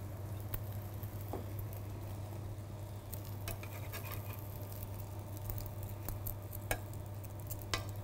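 Metal spatula scraping and tapping against a steel frying pan as an omelette is folded over, a few light clicks spread through, over faint sizzling of egg in butter and a steady low hum.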